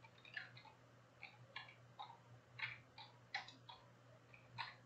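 Faint, irregularly spaced clicks and ticks, about eight in under five seconds, over a steady low hum.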